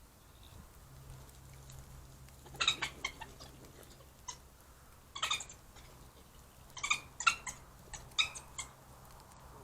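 Eurasian badgers calling during a play fight: short, high-pitched calls in four quick bouts, the first about two and a half seconds in and the last near the end.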